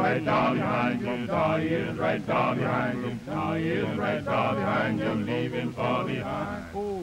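A choir singing, with men's voices to the fore.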